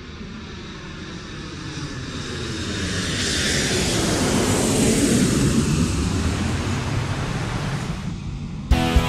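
Jet aircraft passing by, its engine noise swelling to its loudest about five seconds in while its tone sweeps. Music with drums cuts in just before the end.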